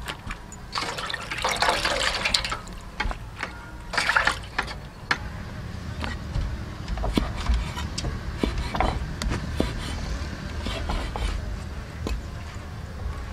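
Brine-soaked pickled mustard greens handled by hand, with wet dripping and splashing of the pickling liquid. From about halfway through, a cleaver knocks on a wet wooden chopping board a few separate times as the greens are cut.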